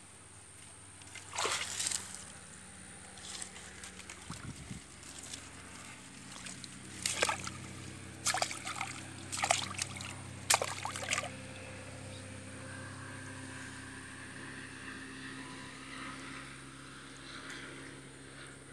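A hooked traíra thrashing on the line at the water's edge, slapping and splashing. The splashes come in several sudden bursts, loudest between about seven and eleven seconds in, then die down.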